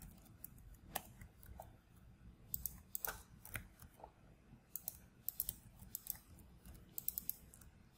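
Faint, irregular computer keyboard keystrokes, coming in short clusters of taps with pauses between.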